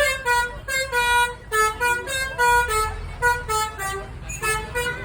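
Basuri multi-tone 'telolet' bus horn, worked by hand, playing a quick tune of short honking notes that step up and down in pitch, over a low rumble.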